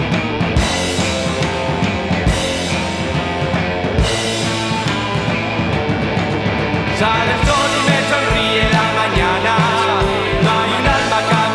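Rock song played by a band on guitar, keyboard and drum kit, with a steady drum beat; a voice starts singing about seven seconds in.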